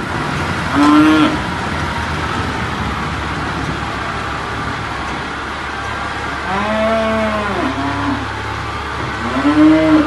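Cattle mooing over a tractor engine running steadily. There is one short moo about a second in, several overlapping moos in the middle, and another loud moo near the end.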